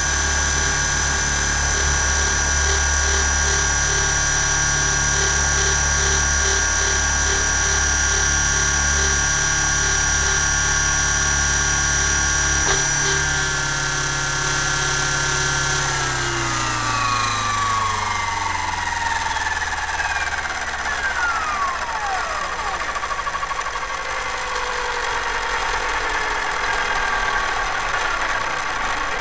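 Onboard sound of a T-Rex 600 radio-controlled helicopter's motor and rotor head, running at a steady high whine with the model resting on the ground. About halfway through, every tone falls steadily in pitch as the rotor spools down.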